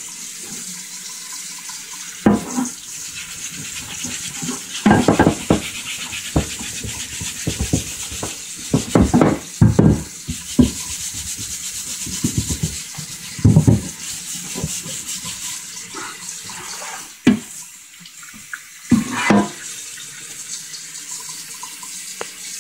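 Kitchen tap running into a stainless steel sink while a vise base is scoured with a scrub pad, with irregular bursts of scrubbing strokes and knocks as the piece is worked. The scouring takes off the rust and sludge loosened by electrolysis.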